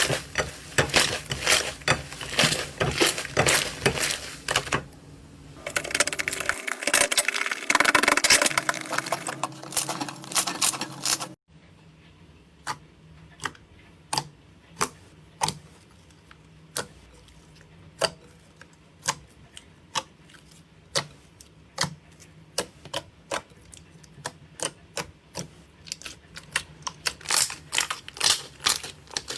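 Slime being squished and pressed, giving rapid wet clicking and crackling pops; after a sudden cut about eleven seconds in, the pops come singly, about one a second, getting quicker near the end.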